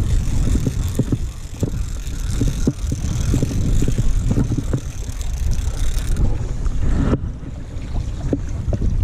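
Wind rumbling on the microphone, with scattered short knocks and taps from handling the rod and camera.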